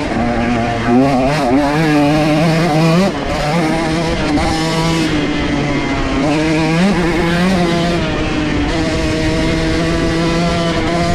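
125cc two-stroke dirt bike engine ridden hard through a trail. The throttle is worked up and down quickly for the first three seconds, then the engine holds a steadier high-revving note, with a quick rev-up about seven seconds in.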